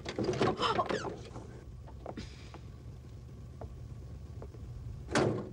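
The sticking door of an old convertible car rattling and clicking as its latch is worked open, with a few small knocks, then the door shutting with one loud thunk near the end.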